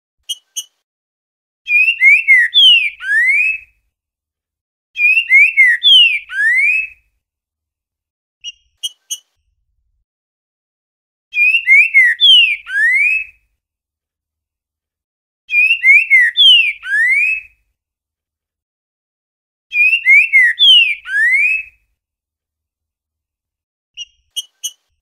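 Green-winged saltator (trinca-ferro) singing its 'boiadeiro' song: five phrases of loud, sliding whistled notes, each about two seconds long, repeated after pauses of a few seconds. Between phrases come a few short, high, clipped notes.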